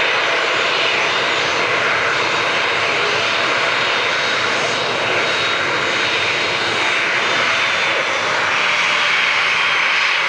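Airliner jet engines at high takeoff power: a loud, steady rushing noise with a faint high whine running through it.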